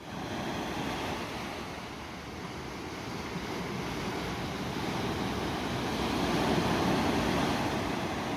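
Sea surf washing on a shore, a steady rush of waves that swells to its loudest about two-thirds of the way through and then eases slightly.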